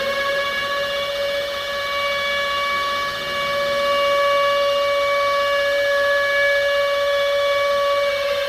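Civil defense siren sounding one long, steady note after winding up, and beginning to wind down near the end.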